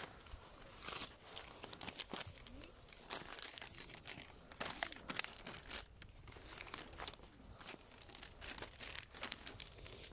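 Irregular rustling and crackling handling noise from a hand-held camera being carried while walking, quiet, with sharp crackles at uneven intervals.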